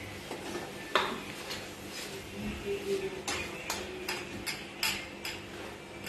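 Metal spoon stirring pancake batter in a steel bowl, clinking against the bowl's side while baking powder is mixed in. There is a single clink about a second in, then a quick run of clinks, about three a second, from halfway on.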